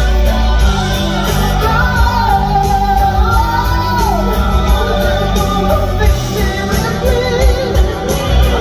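Recorded music, credited as a string ensemble's cover: a smooth lead melody held and gliding between notes, over steady low bass notes.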